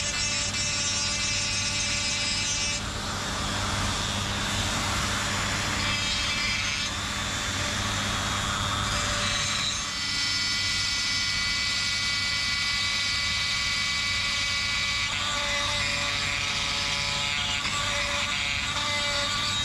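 Electric die grinder running steadily, its burr grinding a piece of cast iron held in a vise. Its whine shifts in tone several times as the cut changes.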